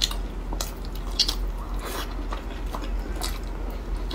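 A person chewing and biting soft, wet food: a steamed bun topped with pork, napa cabbage and glass-noodle stew. The mouth sounds come as scattered short, soft clicks.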